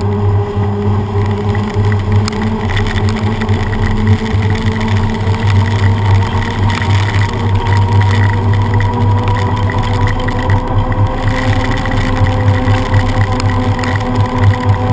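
Steady road noise from riding a bicycle along a wet road in traffic: tyre hiss and spray over a low drone, with a hum that rises slowly in pitch.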